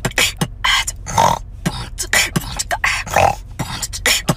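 A woman beatboxing: a quick, uneven run of sharp mouth-made percussive hits mixed with short vocal sounds.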